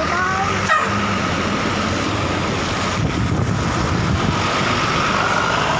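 Road traffic passing: a steady rumble and hiss of engines and tyres.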